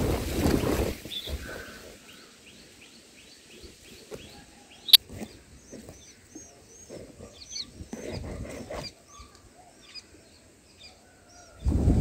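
High thin cheeps repeated a few times a second, typical of white-eye nestlings begging at the nest. Low rustling bursts come near the start and again about eight seconds in, as the parent leaves and returns to the nest, and there is one sharp click about five seconds in.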